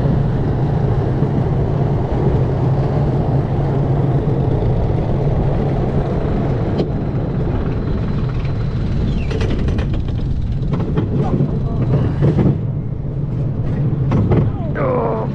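Amusement ride in motion: a steady low mechanical hum with a noisy rumble, a run of clicks and knocks partway through, and a short voice-like cry near the end.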